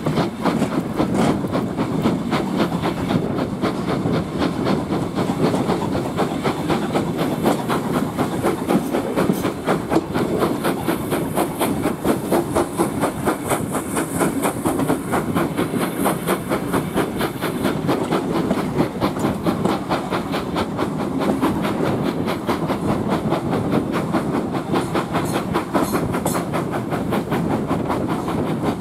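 Steam-hauled passenger train, LMS Ivatt tank locomotive no 41312, heard from an open carriage window while under way. Steady running noise with rhythmic wheel clatter over the rail joints, and a hiss of steam in the middle stretch.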